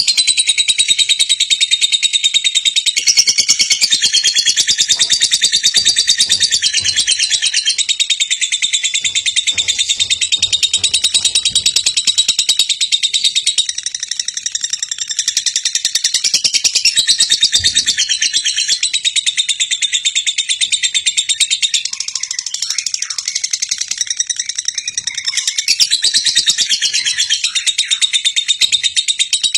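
A dense, continuous chorus of high-pitched chirping birds, which cuts off abruptly at the end.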